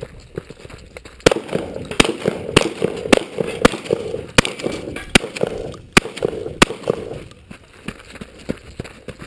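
A string of about nine gunshots, fired at a steady pace roughly two-thirds of a second apart, then stopping about two-thirds of the way through.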